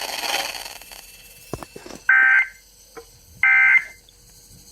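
Emergency Alert System end-of-message data bursts on a weather radio: two short, shrill two-tone digital chirps about a second apart, after a little radio hiss and a couple of clicks. They mark the end of the broadcast warning message.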